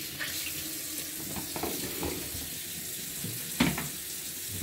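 Kitchen faucet running a steady stream into a stainless steel sink while hands are rinsed under it, with one sharp knock about three and a half seconds in.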